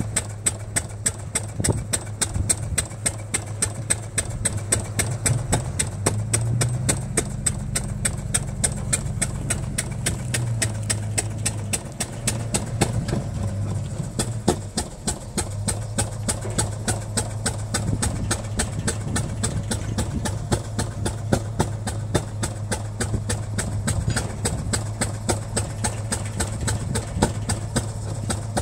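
Arrow C-96 single-cylinder gas engine running steadily, driving a National 160 oil-well pumping unit: a quick, even beat of firing knocks over a low hum.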